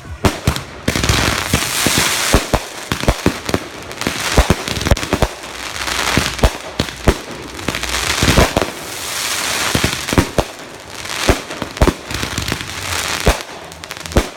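Consumer fireworks going off in quick succession: many sharp bangs at irregular intervals, with stretches of hissing crackle between them.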